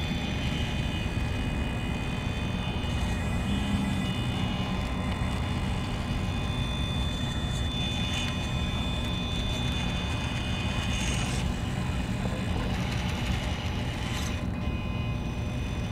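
Brushless motor and gear drivetrain of an RC rock crawler whining at low throttle as it creeps and turns, rising slightly in places, over a steady low rumble.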